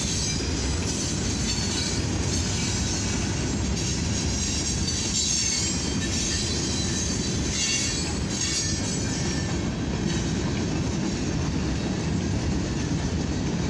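Freight cars (covered hoppers, then gondolas) rolling past at about 29 mph: a steady rumble of steel wheels on rail, with a high squeal from the wheels at times.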